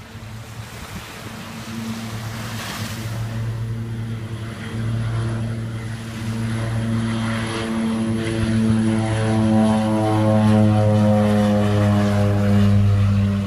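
Propeller floatplane taking off and climbing past. Its engine and propeller drone grows steadily louder, and the pitch falls slightly in the last few seconds as it goes by.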